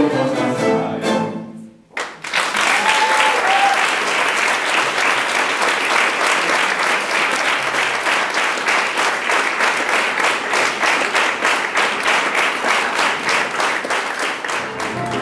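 A song with singing, fiddle and guitar ends on its last notes about two seconds in. After a brief pause an audience breaks into sustained applause, many hands clapping.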